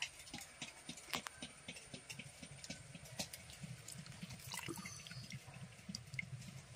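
Faint liquid sounds of thick first-squeezed coconut milk being poured into a fish curry simmering in a clay pot, with many scattered small clicks and pops.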